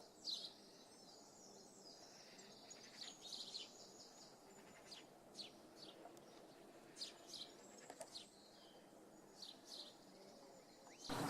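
Small birds giving scattered short, high chirps, one or two at a time, over a faint outdoor background. A much louder noise cuts in right at the end.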